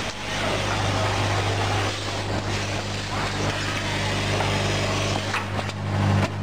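Packaging machinery running with a steady low hum under an even, noisy hiss.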